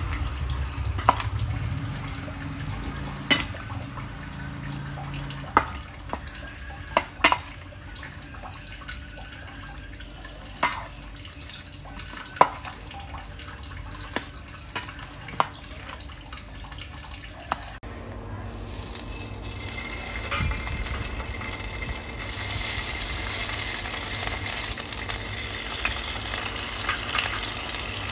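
A metal spoon clinks now and then against a stainless steel bowl of marinated mackerel pieces. About eighteen seconds in, a steady sizzle of hot oil starts as the fish pieces go into the frying pan, and it grows louder a few seconds later.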